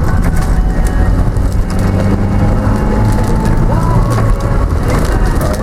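Car driving in heavy rain, heard from inside the cabin: a steady engine and road hum with rain pattering on the body and windscreen.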